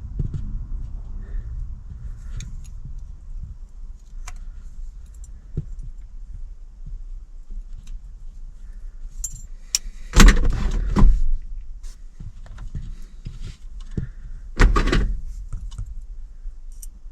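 Hands handling small metal and plastic parts: light clicks and clinks of wiring and tools, with two louder rustling, scraping handling bursts, one about ten seconds in lasting about a second and a shorter one near fifteen seconds.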